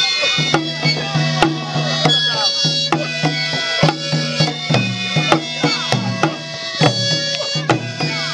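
Kiba music from a Sepedi ensemble: end-blown pipes (dinaka) sound many held notes in interlocking parts, over steady drum beats.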